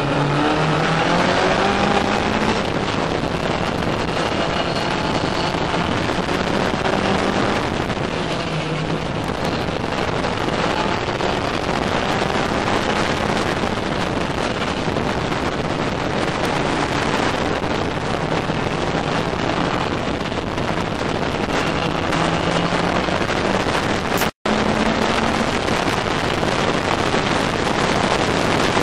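Ginetta race car's engine at racing speed heard from its open cockpit, revs climbing and dropping as it is driven hard, under heavy wind buffeting on the microphone. The sound cuts out for an instant near the end.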